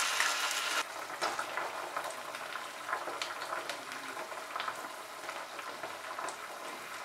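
Chopped onion and sauces sizzling and crackling gently in hot oil in a frying pan, with a few light clicks as a metal spoon scrapes tomato ketchup into the pan.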